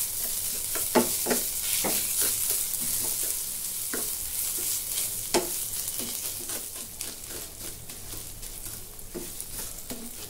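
Fine vermicelli and grated mawa sizzling as they roast in ghee in a frying pan, with a flat spatula scraping and stirring through them in irregular strokes.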